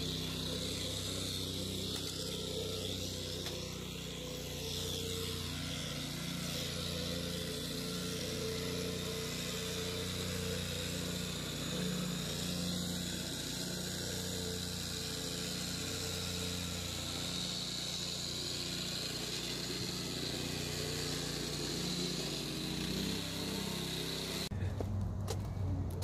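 An engine running steadily at one constant speed.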